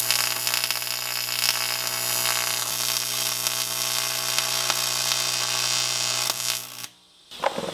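AC TIG welder arc on aluminum: a steady buzzing hum over a sizzling hiss, cutting off abruptly about seven seconds in. The workpiece is a cracked aluminum transfer case that is dirty and soaked with transfer case fluid.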